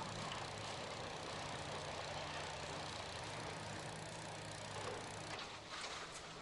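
Engine of heavy demolition machinery running steadily under a broad rumble of noise, with a few sharp knocks and clatters near the end.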